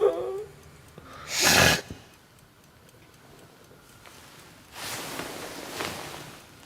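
A sleeper snoring: one short, loud snort a bit over a second in, then a longer, softer snoring breath near the end.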